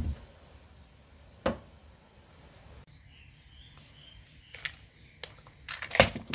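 Light handling noises on a wooden deck: a single knock about a second and a half in, then a quick run of clicks and taps near the end as a box of .22 cartridges is handled and set down beside the rifle's magazine.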